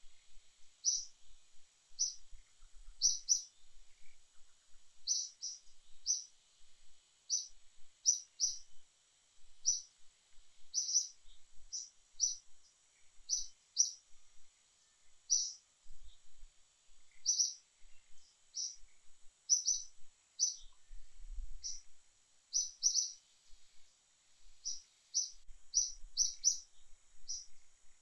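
A bird chirping over and over: short, high chirps, one or two a second, some in quick pairs, over a faint steady high hiss.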